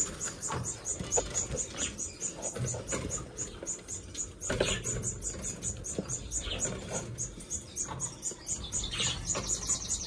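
Finches in a bird room giving a fast, even, high-pitched ticking chatter, with a few louder single chirps about four and a half and nine seconds in, over low handling rumble.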